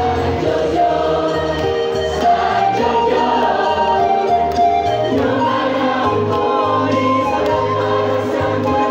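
A mixed choir singing in unison and parts, holding long notes, accompanied by an electronic keyboard playing a steady bass and chords.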